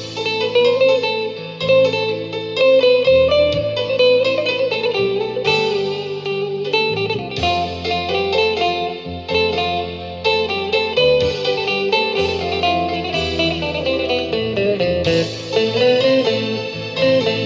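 Instrumental music led by a plucked, guitar-like melody over a changing bass line.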